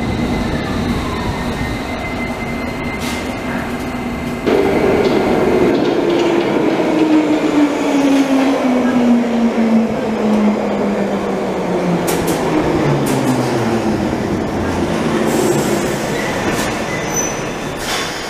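London Underground trains running through station platforms. For the first four seconds one train moves along the platform. Then, after a sudden louder start, a Tube train arrives with a whine that falls steadily in pitch as it slows.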